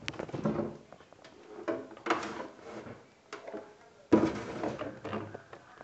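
Handling noise of plastic purifier parts being picked up and moved: rustling and clattering with several sharp knocks, the loudest about four seconds in.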